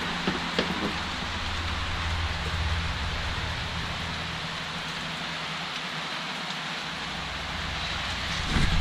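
Steady rain falling, an even hiss, with a few light ticks in the first second.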